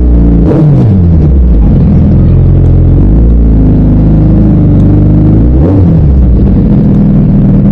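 Suzuki Hayabusa's inline-four engine running loud, its pitch dropping and climbing again twice, about half a second in and near six seconds.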